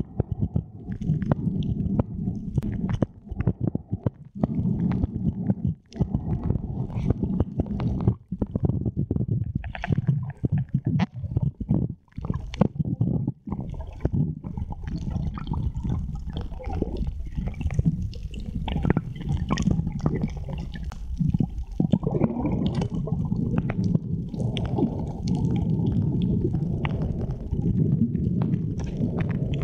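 Muffled underwater sound picked up by a camera in a waterproof housing over a coral reef: a low, gurgling rumble with frequent sharp clicks and knocks, growing fuller and steadier near the end.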